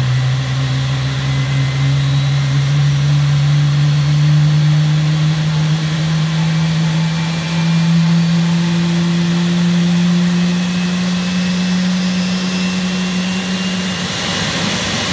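GE90-115B turbofan on a Boeing 777-300ER spooling up during engine start: a loud low hum slowly rising in pitch, with fainter high whines above it. Near the end the hum gives way to a rougher rush.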